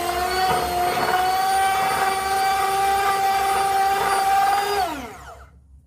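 Electric drill-mixer with a paddle running at steady speed in a bucket of wall putty, a constant whine, then switched off about five seconds in, the whine falling in pitch as the motor spins down.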